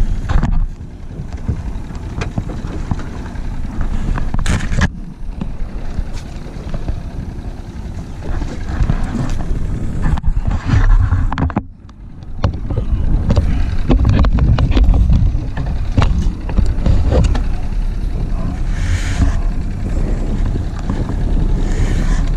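Steady low rumble of wind buffeting an action camera's microphone on an open boat, with scattered knocks from handling. Near the end, fleece cloth rubs against the camera.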